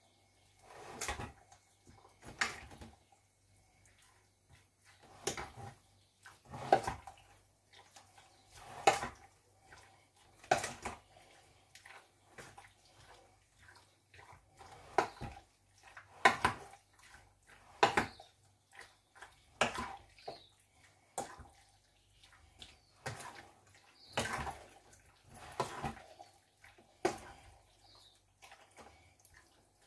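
A hand squishing raw chicken pieces through a spice marinade in a metal bowl: wet squelching and slapping in short, irregular bursts every second or two.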